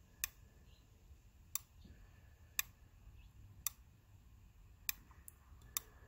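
Snap-action microswitch with its cover off, clicking as the over-centre spring snaps the contact blade between the normally closed and normally open contacts each time the plunger is pushed or released. About six sharp clicks, roughly one a second.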